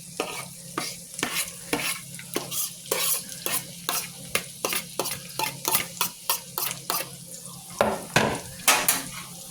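A utensil stirring and scraping steak and vegetables in a frying pan, with short strokes about three times a second over the sizzle of frying.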